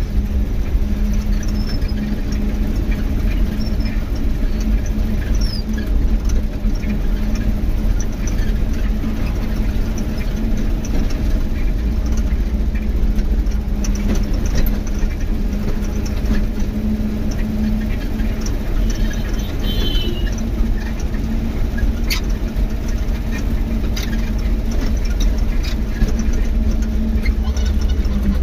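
Moving road vehicle heard from inside: a steady engine hum over a heavy low rumble of tyres on the road, with a few sharp clicks and rattles and a brief squeak.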